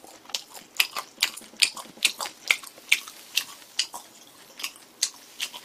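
A person chewing a mouthful of grilled meat with wet, clicky smacks about two to three times a second, spacing out after about three seconds.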